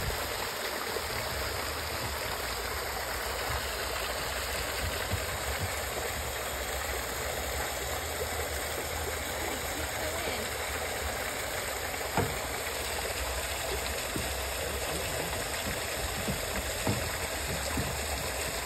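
Small rock waterfall splashing steadily into a pond.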